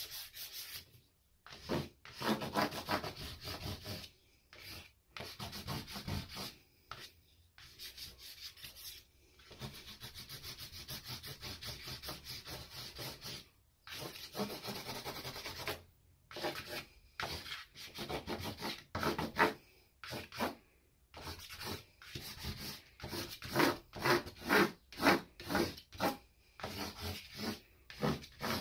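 Stick of willow charcoal scratching and rubbing across a large sheet of cartridge paper: uneven drawing strokes with brief pauses and a longer stretch of continuous rubbing in the middle, then a quick run of short hatching strokes, about two a second, in the last several seconds.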